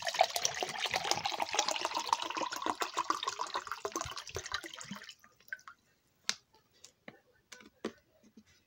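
Water running from a tap for about five seconds, then shut off, followed by a few light clicks and knocks.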